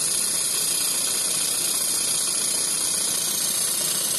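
Handheld laser welder running, a steady, even hiss.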